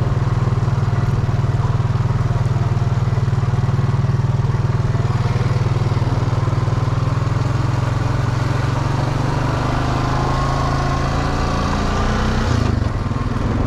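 Off-road bike engine running steadily under way, its pitch edging up late on before a brief dip near the end. The engine is due for a top-end rebuild.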